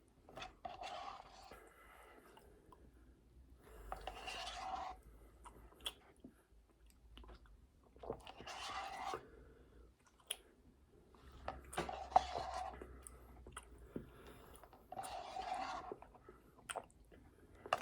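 A person chewing food close to the microphone, in bursts of about a second every few seconds, with small wet clicks in between.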